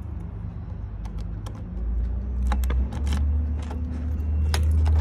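Car engine running with a steady low rumble that grows louder about two seconds in, with scattered light clicks and rattles on top.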